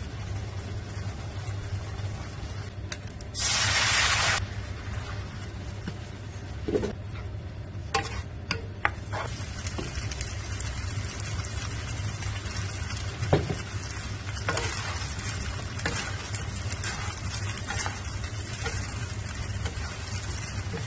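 Stir-fried noodles, shrimp and vegetables sizzling in a frying pan, with a wooden spatula stirring and now and then knocking against the pan, over a steady low hum. About three and a half seconds in, a loud hiss lasts about a second.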